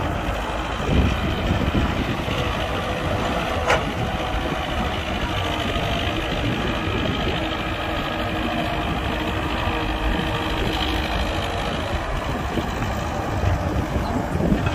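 Heavy diesel earthmoving machinery, an excavator and dump truck, running steadily at work, with a single sharp knock a little under four seconds in.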